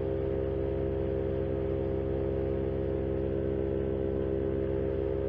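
Power2Fly RS paramotor engine and propeller running steadily in cruise flight, a constant even drone that does not change in pitch or loudness.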